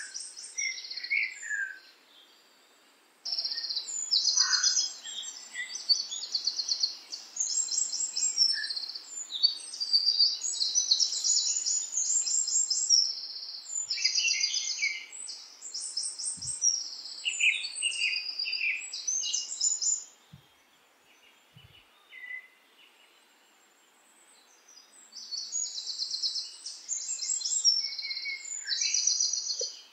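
Small songbirds singing in high, rapid chirps and trills, phrase after phrase, with a short pause a couple of seconds in and a longer pause about two-thirds of the way through.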